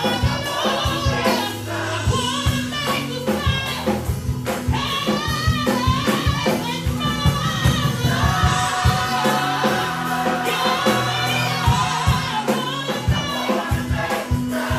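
Gospel choir singing, backed by a band with bass notes and drums.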